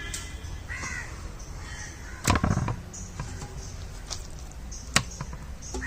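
Crows cawing a few times in the background. There is a loud dull thump a little over two seconds in and a sharp click near the end, which fit chicken pieces being handled in a bowl.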